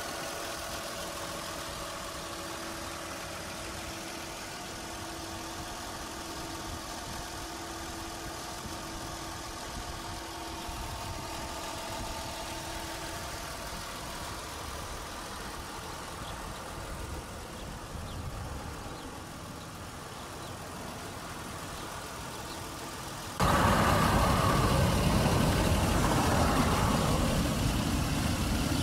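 Toyota 1JZ-GE 2.5-litre inline-six idling steadily. About 23 seconds in the sound abruptly gets louder and rougher.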